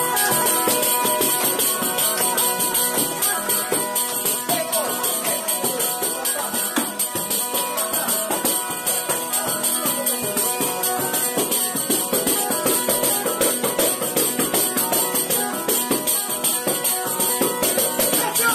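Calabrian zampogna (bagpipe) playing a tarantella, its drones held steady under the chanter melody. A tamburello (jingle frame drum) beats a fast, even rhythm with it.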